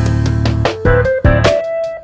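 Background music: a melody of held notes that step up and down in pitch over a light, regular beat.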